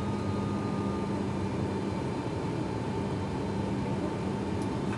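ATR 72-500 cabin noise in the climb: its Pratt & Whitney PW127 turboprop engines and propellers give a steady drone with a constant low hum.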